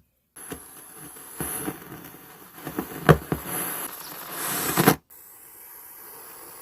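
Old mixing console fed back into itself (no-input mixing, aux send patched into its own channel), playing through a speaker: a harsh, crackling feedback noise with a thin high whistle and sharp pops. It swells and then cuts off suddenly about five seconds in, leaving a fainter steady hiss.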